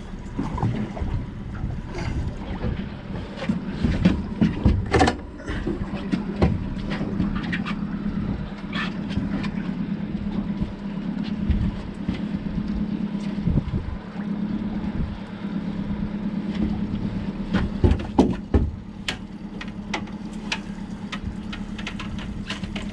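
Outboard motor running steadily at low speed, a constant low hum, with scattered sharp knocks and clicks of handling on an aluminium boat.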